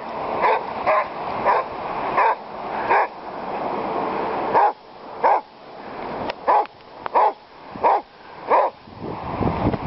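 A dog barking repeatedly in short barks, a little over one a second, with a pause of about a second and a half partway through.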